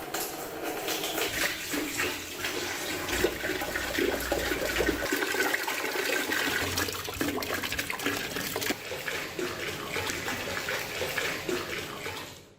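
Water running and splashing, with many small clicks and knocks mixed in.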